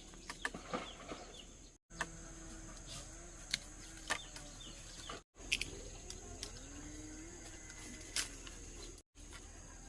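Outdoor farmyard sounds: a steady high insect drone with short low calls from fowl and scattered sharp clicks and knocks, broken by three abrupt cuts.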